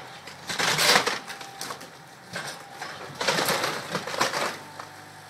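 Wooden wall of an old house cracking and crunching as it is pushed over during demolition, in two loud bursts: one about a second in and a longer one about three and a half seconds in.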